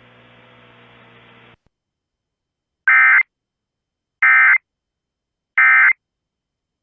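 Emergency Alert System end-of-message code: three identical short, harsh digital data bursts about a second and a half apart, the audio frequency-shift-keyed tones that close an EAS alert. Before them comes a faint steady hum that stops about a second and a half in.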